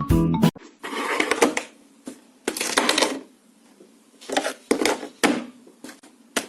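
Several bursts of clatter and rustling, each under a second or so, with quieter gaps between them. A moment of music is heard at the very start.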